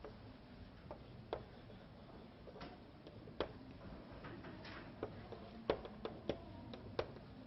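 A string of irregular light clicks and taps, about ten, with the loudest ones in the second half, over a faint steady room hum.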